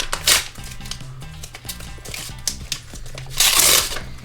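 Background music with a steady bass line, over the crinkling of a TeamCoach trading card pack's foil wrapper being handled and torn open, briefly near the start and louder for about half a second around three and a half seconds in.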